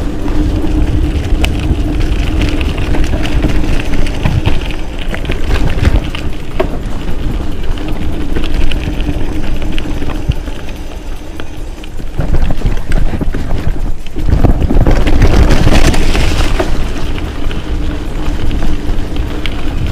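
Riding a mountain bike along a dirt trail: wind buffets the camera microphone and the tyres rumble over the ground, with frequent short rattles and knocks from the bike over bumps. The rush gets louder for a few seconds about three-quarters of the way through.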